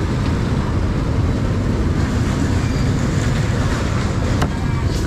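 Steady rumble of street traffic, with a couple of faint clicks near the end.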